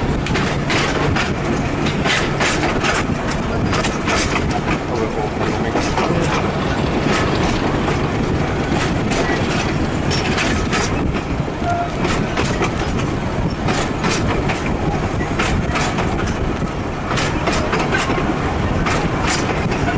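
Train running along the track: a steady rumble with repeated clatter of wheels over rail joints.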